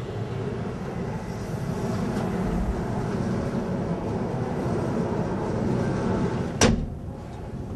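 Electric train running slowly out of a station, a steady low rumble growing gradually louder as it gathers speed, with a single sharp knock about six and a half seconds in.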